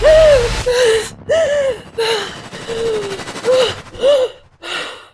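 A woman sobbing: a run of short, high whimpering cries broken by gasping breaths.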